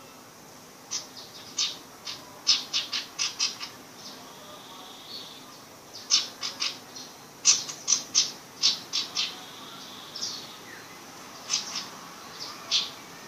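Sirpu bird at the learning stage of its song, giving quick runs of sharp chirps in three bursts, with a few short whistled notes between them.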